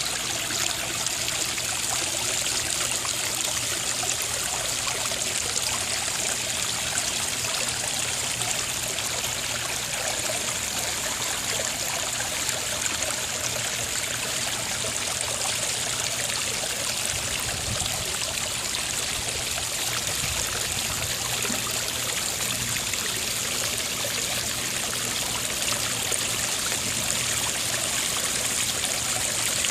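Garden pond waterfall running freshly restarted, water splashing and trickling steadily over the rocks into the pond.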